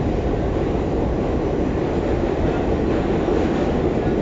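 New York City subway train running through the tunnel, heard from inside the car: a steady, loud rumble of wheels and car body.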